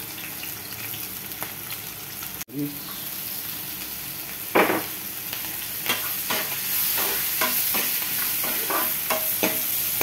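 Sliced onions, garlic and whole spices (cardamom, cloves) frying in hot oil in a metal wok, with a steady sizzle. A metal spoon stirs and scrapes against the pan, with a loud knock about four and a half seconds in and frequent scrapes and taps after it. The sound drops out for an instant about two and a half seconds in.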